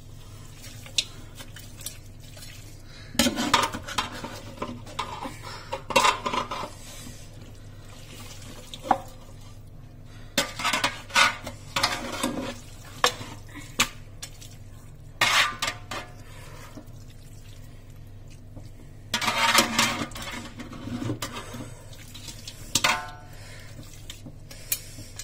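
A metal spoon scraping and clattering against a metal pot in irregular bursts as raw chicken pieces are stirred and turned over with turmeric and salt.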